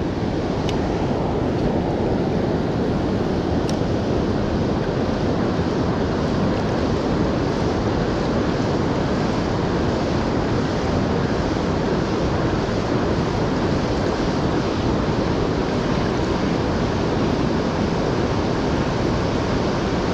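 Fast-flowing river water rushing past, a steady loud wash with no breaks.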